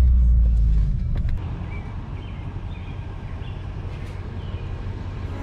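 Car engine and road rumble heard from inside the cabin while driving, steady and deep. About a second in it drops to a quieter low rumble, with a few faint high chirps over it.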